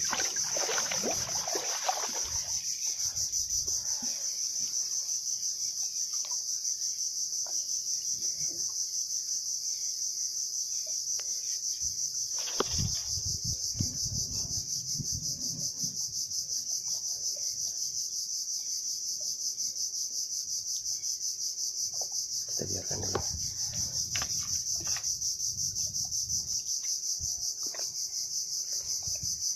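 Steady, high-pitched insect chorus droning without a break. Over it come scattered low rustles and faint knocks, with one sharper knock near the middle.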